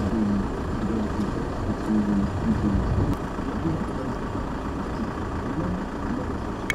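A steady engine-like outdoor rumble with faint distant voices drifting through it, and one sharp click at the very end.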